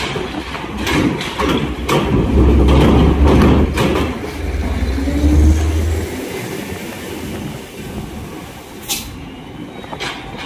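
Diesel trucks driving over a ferry's steel loading ramp: a heavy, deep rumble with knocks as the wheels roll over the ramp plates, loudest for the first six seconds and then easing off, with one sharp knock near the end.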